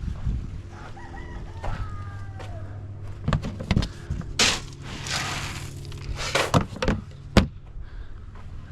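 Chickens clucking and a rooster crowing near the start. Several sharp knocks and a brief rushing noise come in the middle, over a steady low hum.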